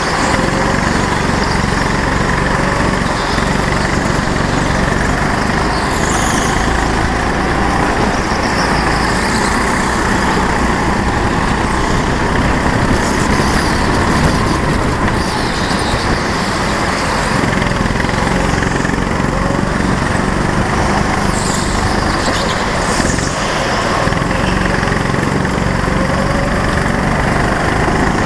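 Go-kart engine running steadily at speed, heard close up from a camera mounted on the kart.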